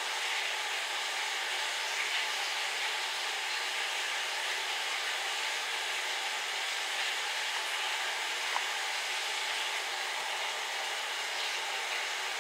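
A steady, even hiss with a few faint ticks, as a person eats cornstarch chunks from a spoon.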